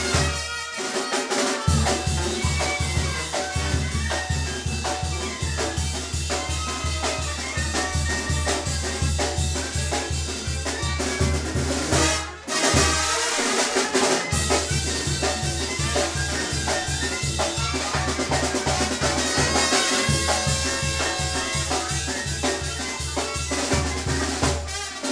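Brass band music: brass over a steady snare-and-drum beat with a pulsing low bass, cutting out briefly about halfway through.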